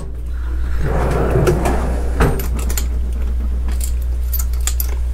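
Metal sockets clinking and rattling as one is picked out of a socket tray, then a sharp click and a cluster of light metallic clicks as a socket and ratchet are worked on a shock absorber's top nut, over a steady low hum.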